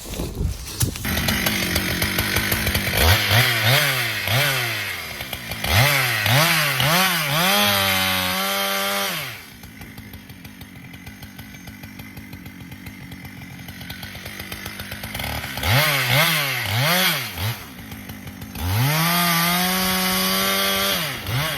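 Husqvarna chainsaw revving up and down repeatedly while cutting into wood. About nine seconds in it drops back to idle for several seconds, then revs up and down again.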